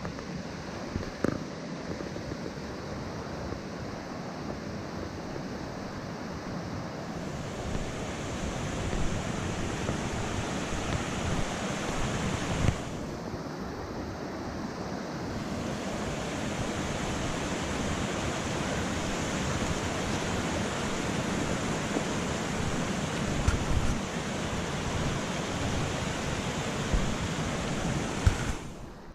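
Steady rushing of white water in a mountain stream or waterfall, with wind thumping on the microphone. The sound changes abruptly a few times, about 7, 13 and 15 seconds in.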